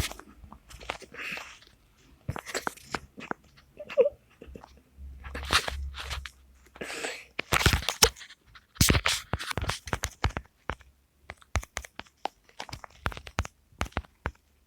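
Irregular crunching and sharp clicks close to the microphone, with short crackling bursts between them.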